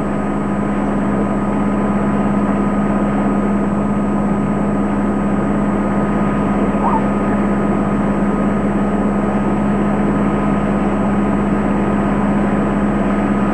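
Sailboat's inboard diesel engine running steadily under way, a constant low drone.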